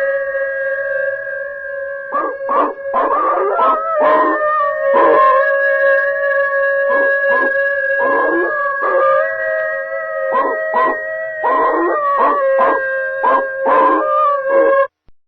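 Dogs howling and yelping in short, rough cries over a steady, unbroken held tone. Everything cuts off suddenly near the end.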